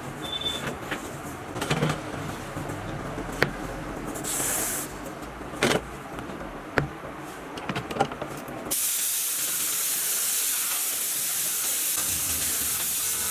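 Compressed-air spray gun hissing: a short burst about four seconds in, then a long steady spray starting about nine seconds in. Before that come scattered light knocks and clicks.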